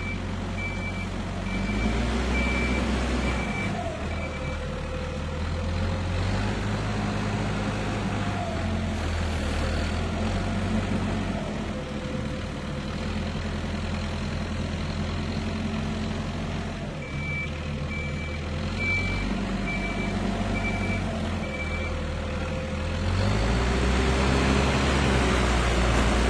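Tractor engine working, its note rising and easing under load. A reversing alarm beeps at an even pace, about seven beeps at the start and again about seven beeps in the second half. The engine grows louder near the end.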